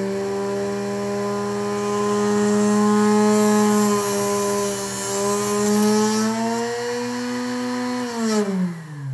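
Electric arrow cut-off saw running at a steady pitch, with a gritty hiss in the middle for a few seconds as a shaft is cut. About eight seconds in it is switched off and winds down in falling pitch.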